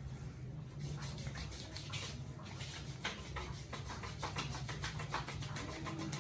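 Head massage rubbing over hair and scalp: quick repeated rasping strokes, a few a second, over a steady low hum.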